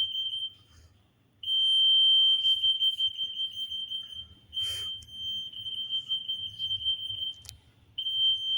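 RF anti-theft (EAS) gate, a C-301L working at 8.2 MHz, sounding its alarm as an RF hard tag sets it off: one steady high-pitched tone. It cuts out for about a second half a second in, breaks again very briefly near the middle, and drops out for half a second shortly before the end.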